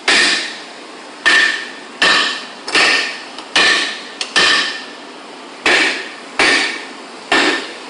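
A hammer repeatedly striking the steel of a heavy safe: about nine blows at roughly one a second, each with a short metallic ring, and a gap of over a second about two-thirds of the way through.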